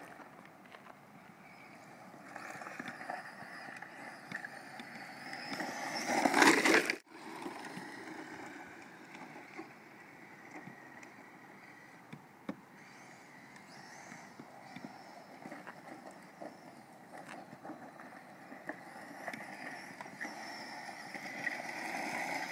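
Kyosho DRX radio-controlled rally car with a brushless electric motor driving on dirt and gravel: motor whine mixed with tyres and loose grit. The sound rises to a loud swell about six seconds in that cuts off sharply, then carries on at a lower, uneven level and grows again near the end.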